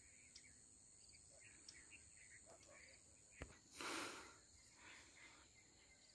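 Near silence with a faint, steady, high-pitched drone of crickets. A brief burst of rushing noise comes about four seconds in.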